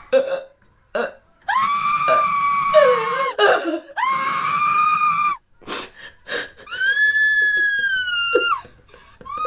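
A woman screaming: three long, high-pitched screams, the last one the highest, with short gasping breaths between them.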